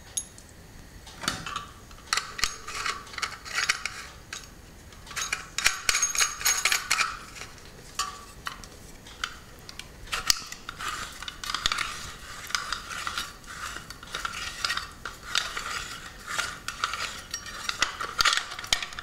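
Stainless-steel sev press (hand-held sev maker) being assembled: its perforated disc fitted into the metal cylinder and the parts turned and handled, giving irregular metallic clinks, scrapes and rattles.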